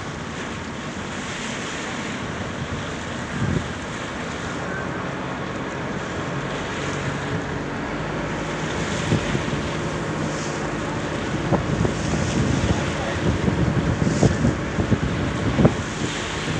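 Wind buffeting the microphone over the rush of water past a moving boat, with a faint low engine hum; the wind gusts hit the microphone harder in the second half.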